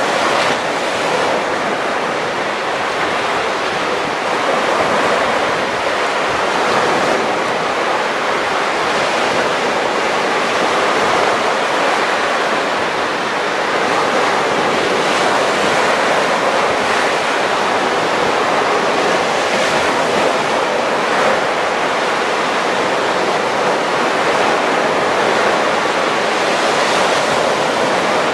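Small Baltic Sea waves breaking and washing up on a sandy beach: a steady rush of surf that swells a little each time a wave breaks.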